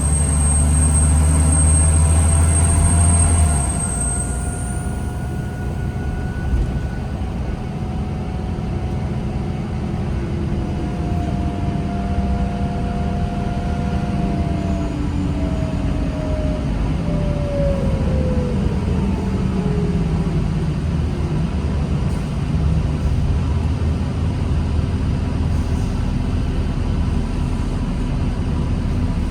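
New Flyer D40LFR diesel transit bus running, heard from on board. A strong low drone and a very high whine stop about four seconds in. After that, whining tones from the drivetrain glide up and later fall away as the bus speeds up and slows down, over a steady rumble.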